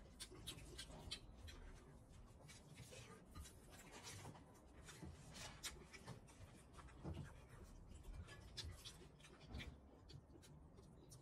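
Faint eating by hand: fingers squishing and mixing rice and curry on a plate, with chewing and mouth smacks, a scatter of small irregular clicks.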